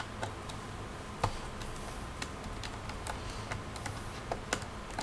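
Light, irregular clicks and ticks of a small Phillips screwdriver turning out screws in a laptop's hard drive bay, with a sharper click about a second in.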